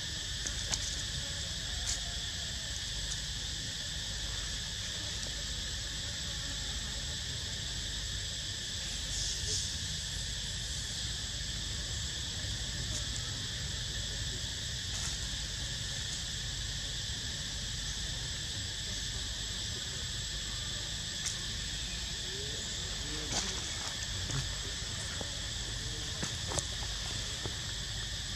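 Steady, unbroken insect chorus: a shrill drone at several high pitches, with a few faint ticks here and there.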